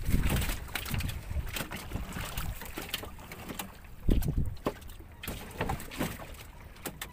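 An iron-framed, net-covered fish trap knocking and scraping as it is hauled and shifted against a small boat, with scattered sharp knocks and a couple of heavier thumps about four seconds in. Wind rumbles on the microphone throughout.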